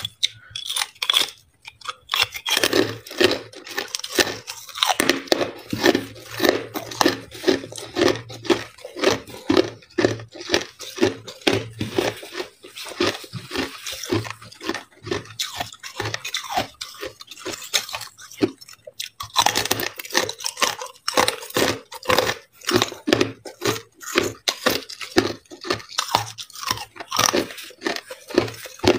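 Crunching and chewing of frost-covered coloured ice pieces, a steady run of crisp crunches a few times a second, with a fresh round of loud bites about two-thirds of the way through.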